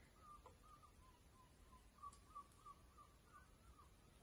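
Near silence: quiet room tone, with a faint wavering whistle that comes and goes through the middle.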